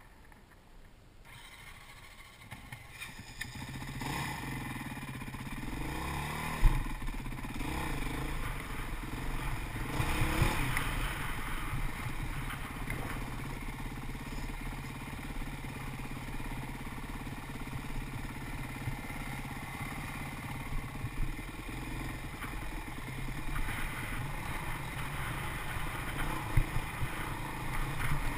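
Dirt bike engine running along a rocky trail. It is faint at first and picks up about three seconds in, then revs up and down. A sharp knock comes about six and a half seconds in, with scattered smaller knocks after it.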